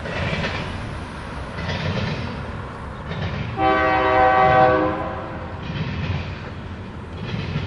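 Double-stack container freight train rolling past, its wheels clacking over the crossing in a steady rhythm that swells about every second and a half. About halfway through, a train horn sounds one chord for just over a second.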